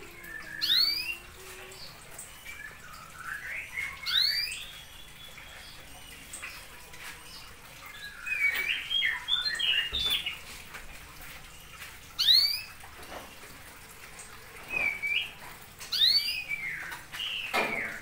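Domestic canary calling from its cage: short, sharp whistled chirps every few seconds, with a burst of twittering about halfway through.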